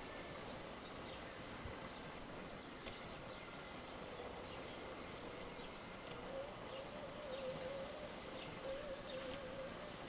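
Outdoor ambience of wind buffeting the microphone, with faint scattered bird chirps. A wavering hum comes in about six seconds in and grows a little louder.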